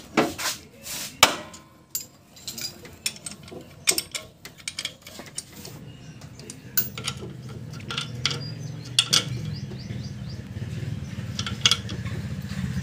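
Metal tools clicking and clinking against a Mitsubishi 4D56 engine's timing belt tensioner as the belt tension is set and the tensioner bolt is tightened with a socket: a string of sharp, irregular clicks and knocks. A low steady hum builds underneath from about halfway through.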